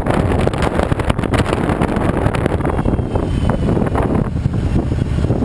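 Wind buffeting the microphone on a moving Harley-Davidson touring motorcycle, with the bike's engine and road noise rumbling underneath. The buffeting eases a little near the end as the bike slows.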